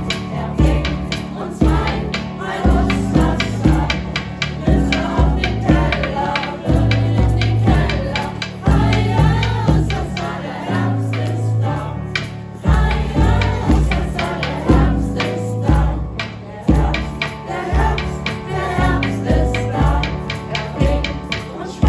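A group of voices singing together over a steady beat of about two strikes a second.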